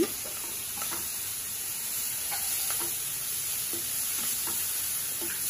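Mixed vegetables sautéing in a non-stick pan: a steady light sizzle, with soft scrapes and taps as a spatula stirs them.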